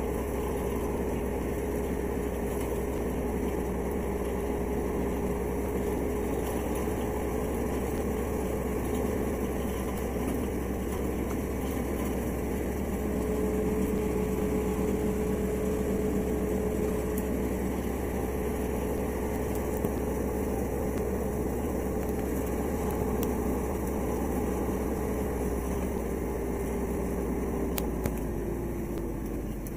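Compact orchard tractor's engine running steadily under load as it pulls a star-type under-tree hoe through the soil. A steady whine rides over it and slides down in pitch near the end.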